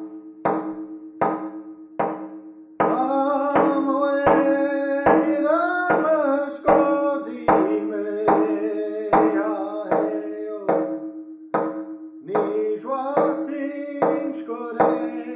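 Intro music: a steady drumbeat, about three beats every two seconds, over a held low drone, with singing coming in about three seconds in.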